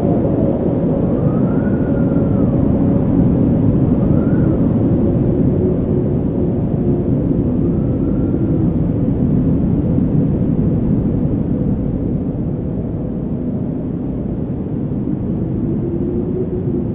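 Wind blowing: a steady deep rushing with faint howling whistles that rise and fall in pitch every few seconds, easing off slightly near the end.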